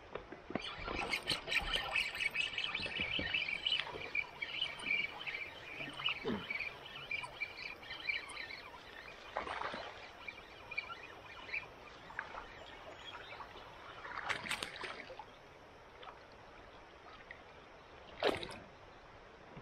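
River water splashing and trickling around a kayak, busiest in the first several seconds. Three sharper splashes or knocks come later.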